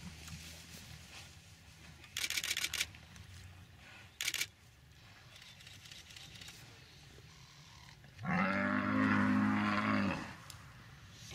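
Lionesses attacking a Cape buffalo: a short rasping snarl about two seconds in, then a loud, low, drawn-out animal call lasting about two seconds near the end.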